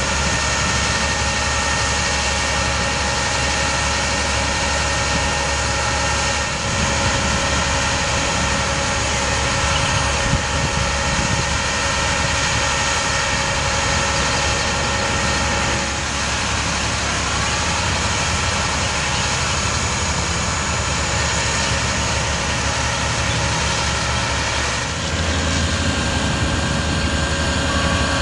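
Bucket truck's engine running steadily to power the hydraulics of an Altec AM55 aerial lift as the boom is raised, with a steady whine over the engine and a slight change in the sound a few times.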